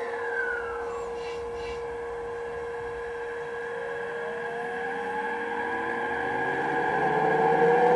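The DCC sound decoder's speaker in an HO-scale E353 limited express model plays the electric train's running sounds. A steady electrical hum is joined about halfway by a rising inverter whine of several tones, growing louder as the train accelerates away. A falling tone fades out in the first second.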